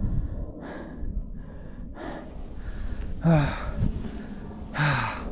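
A runner breathing hard and fast after a steep uphill climb, with two louder voiced gasps, falling in pitch, about three and five seconds in.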